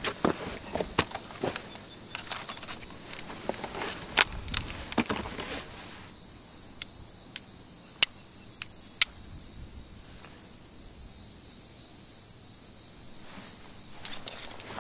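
Dry grass and brush crackling and rustling as it is handled, dense in the first half, then quieter with two sharp clicks about eight and nine seconds in, over a steady high whine.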